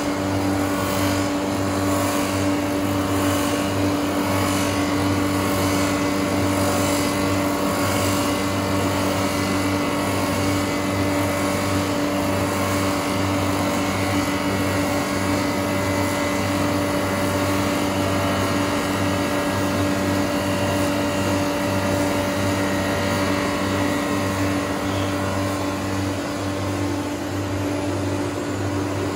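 Mattison rotary knife lathe running as it turns a pine spindle: a steady machine hum with several constant tones, and a faint regular pulsing in the first several seconds.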